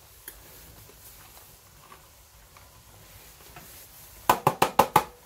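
Low room tone, then near the end a quick run of about six sharp knocks in under a second.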